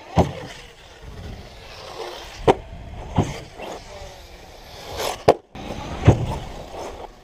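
Arrma Kraton 6S electric RC truck driven hard: its motor whines, rising and falling, broken by five sharp, loud thuds like the truck landing or hitting the ground.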